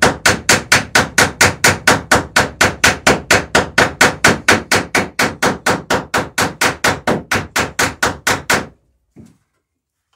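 Hammer rapidly tapping, about four blows a second, to peen over a rivet fastening a plank lap on a wooden dory hull. The blows stop a little before the end.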